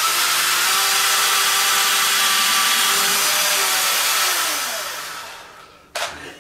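Cordless drill running at full speed, its bit boring a pilot hole into the underside of a kitchen cabinet, with a steady motor whine over the cutting noise. About four and a half seconds in the trigger is released and the motor winds down, its pitch falling.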